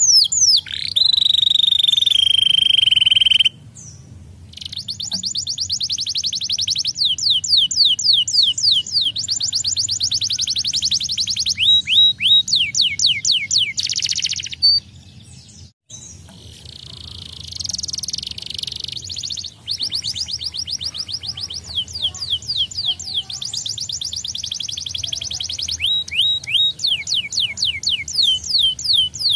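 Domestic canary singing: long fast trills of rapidly repeated high sweeping notes, changing from one trill to the next. The song has short breaks about four seconds in and again about halfway through.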